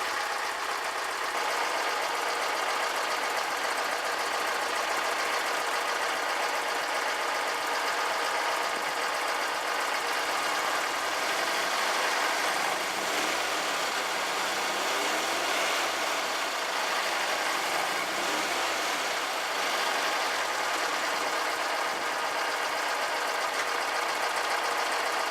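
Air-cooled VW flat-four engine of a Karmann Ghia running steadily after a carburetor cleaning.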